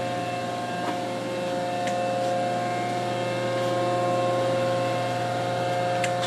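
Rockford hydraulic machine tool running: its 20-horsepower three-phase motor and hydraulic pump give a steady hum with several constant tones, with a few faint clicks.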